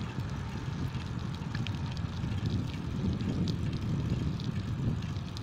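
Wind buffeting the microphone and road rumble from a bicycle rolling along a paved road, a steady low rush with a few faint ticks.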